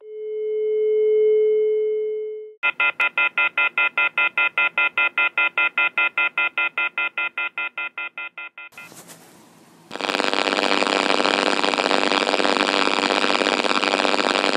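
Electronic intro sound effects: a steady humming tone swells and fades, then a fast pulsing ring, about six pulses a second, like a telephone bell, that dies away. About ten seconds in, a loud dense hissing wash of sound takes over.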